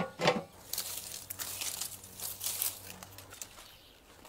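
Dry crinkling and crackling of something brittle being handled: a quick run of light crackles for a couple of seconds, fading away near the end.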